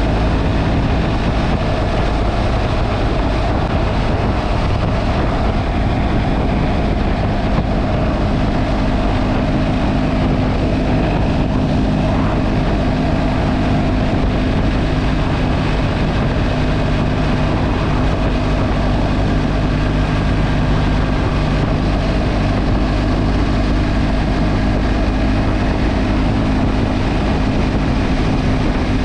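Motorcycle engine running at a steady cruise, with wind noise over the microphone.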